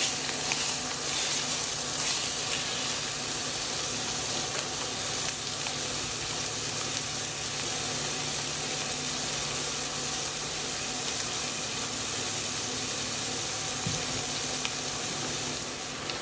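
Pollock filets frying in butter and grapeseed oil in a cast-iron skillet, a steady sizzle.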